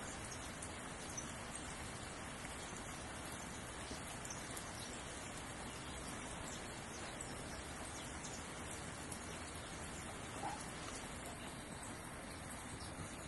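Steady rain falling on garden foliage, an even hiss flecked with fine drop ticks. A single brief higher note stands out about ten seconds in.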